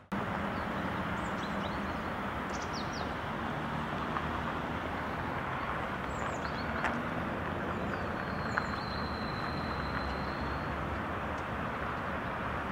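Steady outdoor town ambience, a continuous noisy hiss and rumble, with a few faint short high chirps of small birds and a thin high tone held for about two seconds past the middle.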